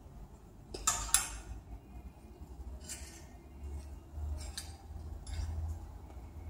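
Clothes hangers scraping and clinking along a metal clothes rail as garments are pushed aside and lifted: a loud clatter about a second in, then a few fainter clinks.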